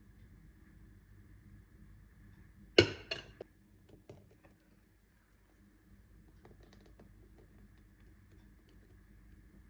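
A glass cup being handled in the kitchen: one sharp knock about three seconds in, followed by a few lighter clicks, over a faint steady hum.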